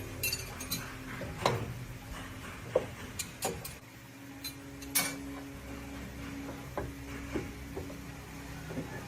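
Scattered metallic clinks and knocks of tools and parts being handled, a dozen or so irregular strikes, some briefly ringing, over a low steady hum.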